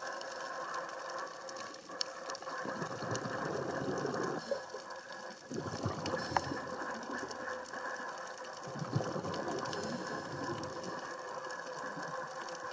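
Underwater sound on a scuba dive: a steady watery hiss, swelling in a few surges of rushing bubbles from the diver's regulator exhalations.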